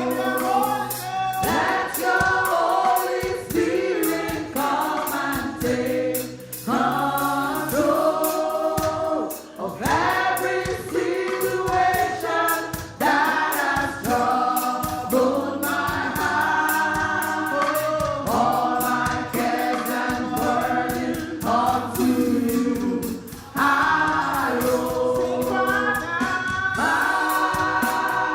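A choir and worship team singing a slow gospel worship song, with sustained sung phrases over instrumental accompaniment and a steady beat.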